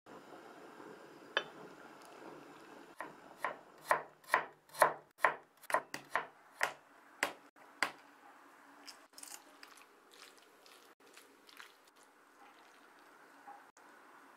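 A kitchen knife chopping on a wooden cutting board: about a dozen sharp strokes at two to three a second, followed by softer scraping sounds. A single clink comes near the start.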